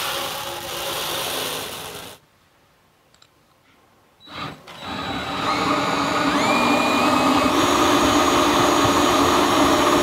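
Malted grain pouring into a steel mill hopper for about two seconds. After a short pause, a cordless drill spins a three-roller grain mill, crushing the malt with a steady grinding run while its whine steps up in pitch as it speeds up.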